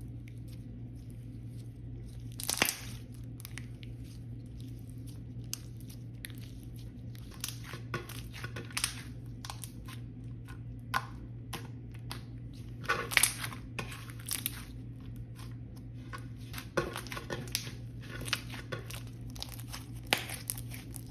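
Jelly slime being squeezed and played with by hand: scattered small clicks and crackles, with a few louder clusters, over a steady low hum.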